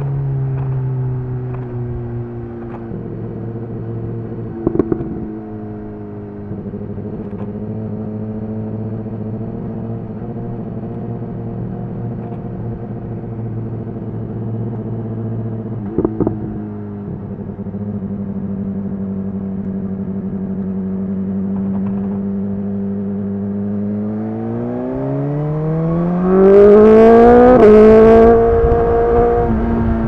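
BMW S 1000 XR's inline-four running through a slip-on Cobra exhaust with the dB killer removed. Its pitch settles to a steady low run for most of the time, broken by two short knocks. Near the end it revs up hard and loud, with a quick break in pitch at the peak, then eases off.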